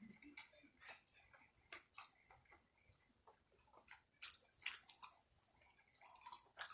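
A person chewing food with the mouth close to the microphone: soft, wet clicks and smacks, growing louder and more frequent from about four seconds in.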